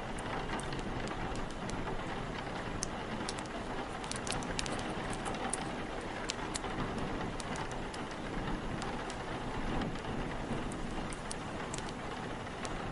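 Steady heavy rain, with scattered sharp crackles of a wood fire over it at irregular moments.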